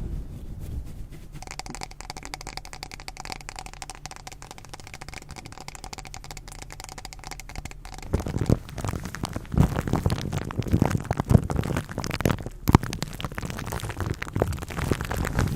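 Close-miked ASMR trigger sounds: a dense run of fine crackling and clicking, which turns into louder, irregular taps and low thuds about halfway through.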